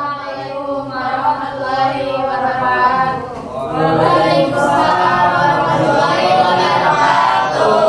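A group of teenage voices singing together without instruments, with a short dip about three seconds in.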